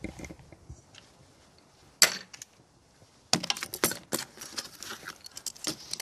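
Small metal hand tools being handled: a single sharp knock about two seconds in, then a quick run of metallic clicks and rattles as a socket and small torque wrench are picked up and fitted.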